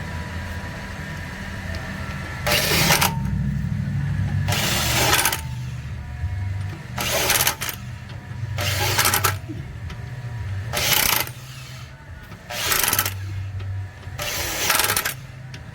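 Electric impact wrench run in short bursts on the wheel's lug nuts, seven bursts of under a second each, about every two seconds, tightening them one after another in a crisscross pattern. A steady low hum runs beneath.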